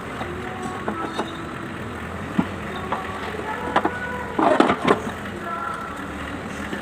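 Scattered clinks and knocks of metal tools and parts being handled over a steady background rumble, with a short burst of clatter about four and a half seconds in.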